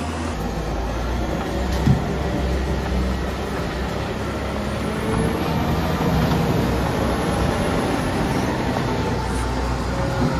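Volvo L90H wheel loader's diesel engine running steadily with a low rumble as it pushes snow with a plough blade; a single short knock about two seconds in.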